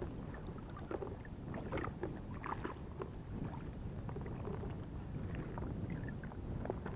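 Choppy water sloshing and lapping around a wading angler, with many small irregular splashes over a steady low wind rumble on the microphone.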